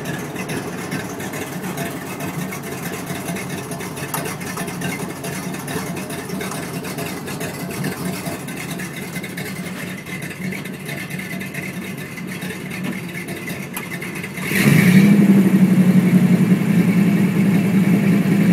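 Pontiac 455 cubic-inch V8 idling with a steady rumble, then revved about fifteen seconds in, running markedly louder from there.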